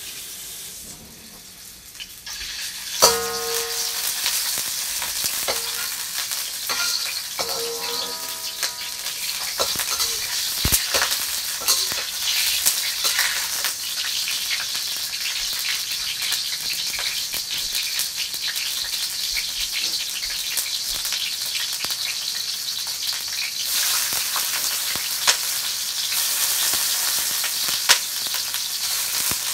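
Food sizzling in a hot frying pan, starting about two seconds in and going on steadily, with a few sharp clinks and short ringing scrapes of a utensil against the pan.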